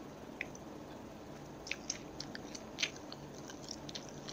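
Close-miked chewing of a buttery olive-spread sandwich, with a scattering of short, sharp crunchy crackles; the loudest comes nearly three seconds in.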